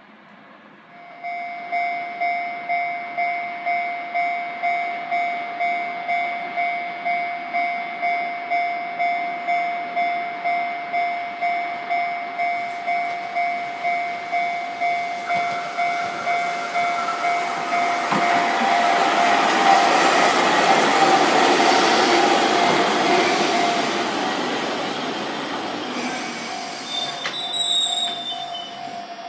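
Level-crossing warning bell starts about a second in and dings steadily about twice a second. Under it, a Chikuho Electric Railway 2000-series articulated electric car approaches and comes alongside, its running noise swelling to the loudest point past the middle, with a brief high wheel squeal near the end.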